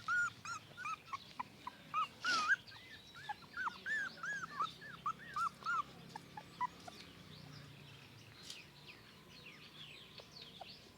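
Newborn puppies whimpering: a rapid string of short, arching squeaks that thins out and grows fainter after about six seconds, with a brief rustle about two seconds in.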